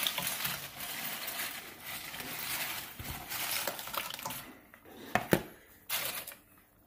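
Homemade fried tortilla chips rustling and tumbling as they are tipped and dropped by hand into a skillet of salsa, with a few sharp knocks past the halfway point.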